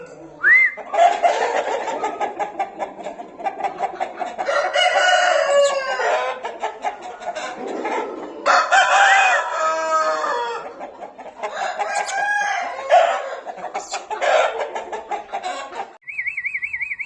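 A flock of Aseel chickens clucking steadily over one another, with roosters crowing several times.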